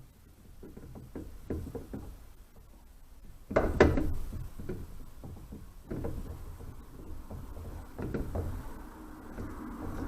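Water filter housing being screwed back onto its head: a string of handling knocks and clicks, the loudest about three and a half seconds in, with further knocks near six and eight seconds. A steady rushing noise comes in near the end.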